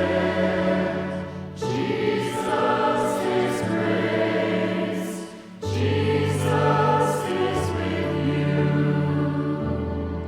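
Church music with a choir singing over sustained chords and held bass notes; the chord changes about every four seconds.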